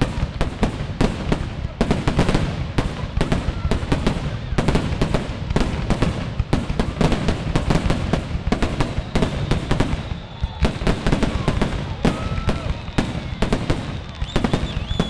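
Fireworks finale: aerial shells bursting in a rapid, unbroken barrage of bangs, several a second.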